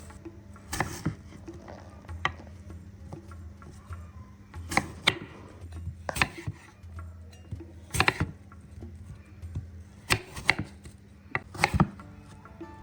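Kitchen knife cutting ingredients on a cutting board: about ten sharp knocks, spaced unevenly and sometimes in quick pairs.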